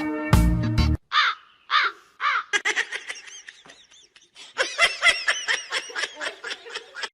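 A bird giving a long series of short, harsh cawing calls. Two single calls come first, then rapid runs of calls.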